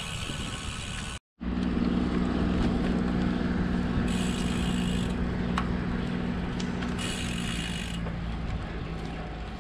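Road bike rolling along a paved trail: a steady rush of wind on the handlebar camera's microphone with a low tyre hum on the pavement. The sound cuts out completely for a moment about a second in, then comes back louder.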